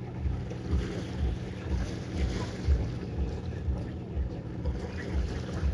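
A motor cruiser's engines hum steadily as it passes on open water. Wind buffets the microphone in low thumps about twice a second, and these are the loudest sound.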